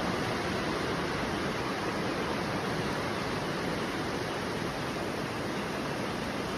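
Steady, even rushing of water, heavy and unbroken, as from floodwater or a downpour.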